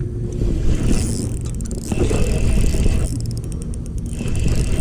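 Boat motor humming steadily. Over it come bursts of hiss and, near the end, a run of fast clicks.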